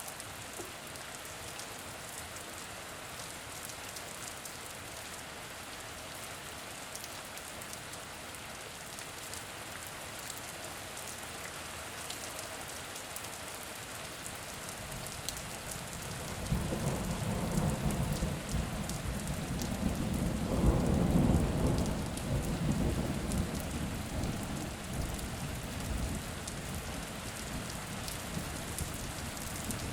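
Steady rain falling, with a long low roll of thunder that begins about halfway through, is loudest around two-thirds of the way in, then slowly dies away under the rain.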